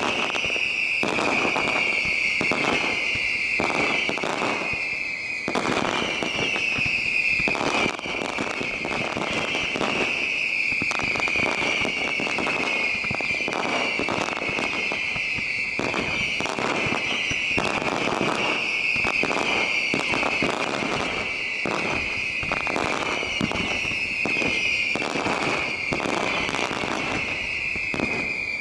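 Daylight aerial fireworks in a continuous barrage of bangs and crackle. Over the barrage, shrill tones glide downward in pitch about once a second, overlapping one another.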